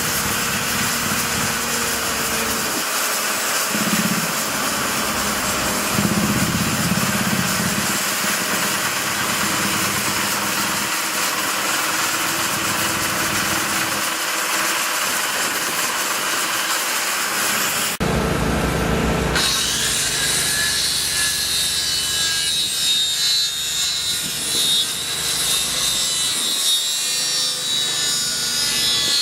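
Construction-site power tool noise, a steady loud hiss. It changes abruptly about 18 seconds in to a different mix with a thin, wavering high whine.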